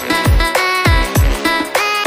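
Electronic outro music: synth notes that slide down in pitch over repeated deep bass hits.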